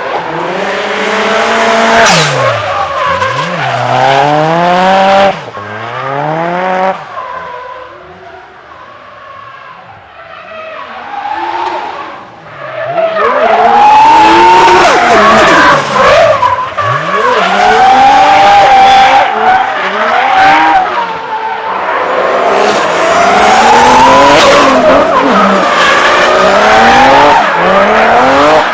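Drift car on a competition run: the engine revs hard, its pitch climbing and dropping again and again, while the tyres squeal as the car slides. It goes quieter about eight to twelve seconds in, then loud again for the rest.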